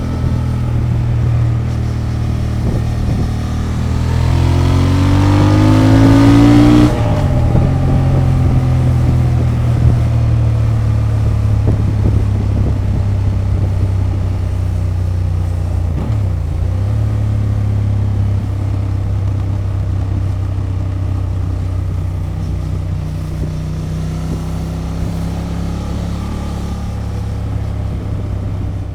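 Honda XL750 Transalp's 755 cc parallel-twin engine through its stock exhaust, rising in pitch for about three seconds as it accelerates, dropping sharply about seven seconds in, then running steadily.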